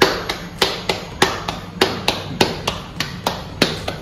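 Bare hands slapping a disc of wet bajra (pearl millet) and spinach thepla dough flat between the palms. The pats are even, about three a second, and every other one is louder.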